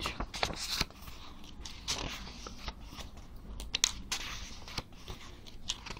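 Pages of a book being flipped quickly one after another, giving a string of irregular paper rustles and crackles.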